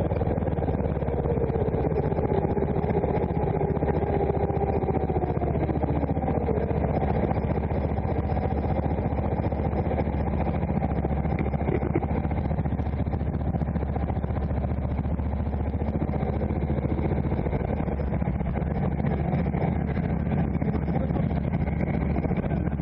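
Rental kart engine heard onboard: its revs fall over the first few seconds as the kart slows, then it idles steadily.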